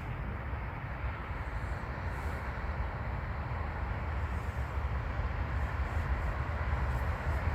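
Train approaching on the line, a steady rumble slowly growing louder.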